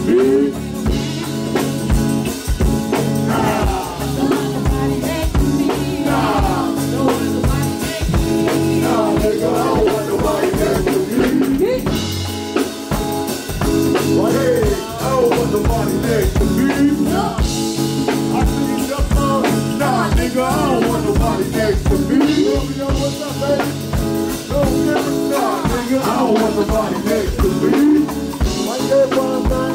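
A live band playing: several vocalists singing over drums with a steady beat.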